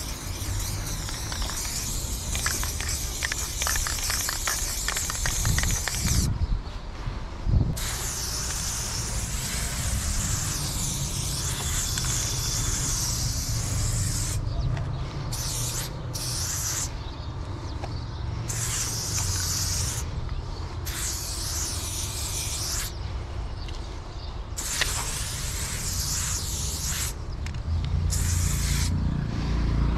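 Aerosol spray paint can hissing against a concrete wall in long strokes, cutting off briefly about eight times between strokes. Two dull thuds come about six and seven and a half seconds in, with a low rumble underneath.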